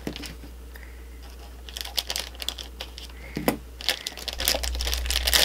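Black foil blind bag crinkling as it is handled and opened by hand, in irregular crackles that start about two seconds in and grow denser near the end.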